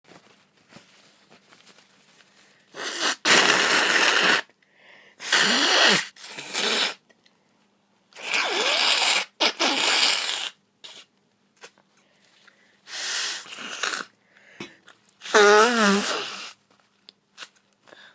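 A person blowing their nose hard into a tissue and sneezing: about six separate hissing bursts, each one to two seconds long, the last one with a wavering voiced tone.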